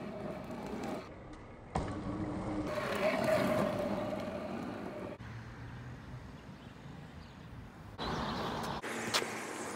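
Stunt scooter wheels rolling on asphalt, in several short clips joined by abrupt cuts.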